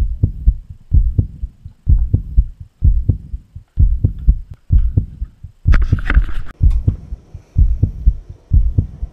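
Deep, regular thumping beat in a heartbeat-like double pulse about once a second. A brief hiss comes about six seconds in.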